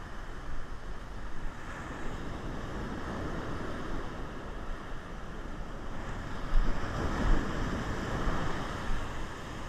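Heavy surf breaking and washing up the beach, with wind buffeting the microphone; the rush and rumble swell loudest a little past halfway.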